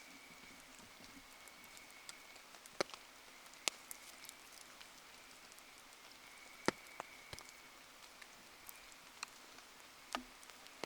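Rain pattering steadily around a wood bonfire, with a few sharp, separate pops and drips, the loudest a little under 4 seconds in and near the middle. A faint thin high tone comes and goes.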